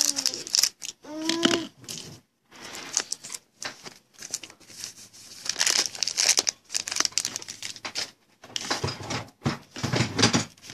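Foil trading-card pack wrapper being torn open and crinkled by hand, in irregular rustling bursts.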